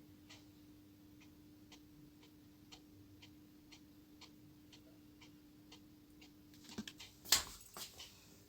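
Faint, even ticking, about two ticks a second, over a low steady hum. Near the end come a few louder clicks and knocks.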